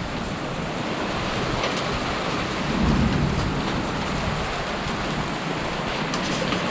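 Torrential rain pouring down in a thunderstorm, a steady dense hiss, with a low rumble swelling about three seconds in. Near the end faint ticks of small hail can be heard among the rain.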